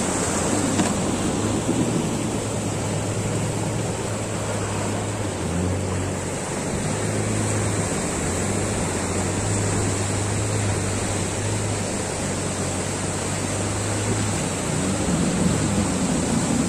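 A small boat's motor running steadily with a low drone, under the wash of breaking surf and wind on the microphone.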